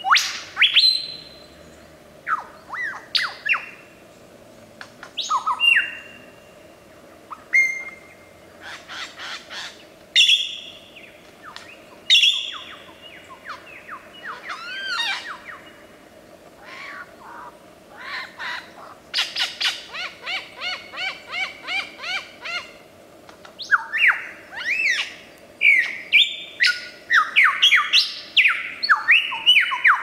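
Male superb lyrebird singing its display song: a non-stop medley of loud, varied whistles and sweeping notes that change every second or two. About two-thirds of the way in comes a fast run of repeated notes, and the phrases crowd together near the end.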